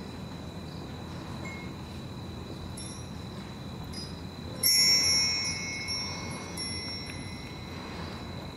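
A metal chime struck once, ringing out with several clear high tones that fade over about two seconds, with a few faint tinkles a little before it. A steady high-pitched tone runs under it.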